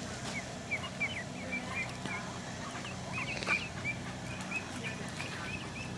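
Birds at a pond giving many short, high chirping calls in quick succession, several a second, over a faint steady low hum.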